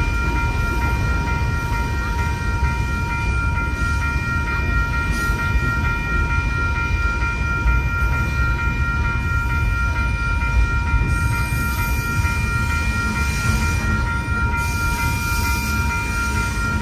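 Double-stack container cars of a freight train rumbling steadily through a grade crossing, with the crossing's newly replaced electronic bell ringing continuously over it. A high hiss joins in over the last few seconds.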